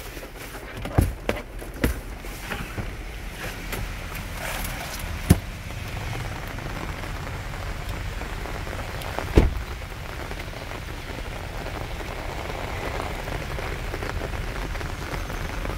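Heavy rain falling, louder after about two seconds, with a few sharp knocks and clicks over it; the loudest is a single thump about nine seconds in.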